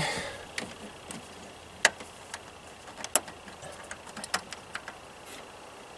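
Scattered sharp clicks and taps of parts and hands working in a pickup's engine bay, with louder clicks about two and three seconds in.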